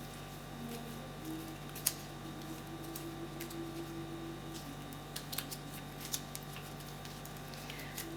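Light, scattered clicks and taps of number cards being mixed and shuffled on a surface, over a steady low hum.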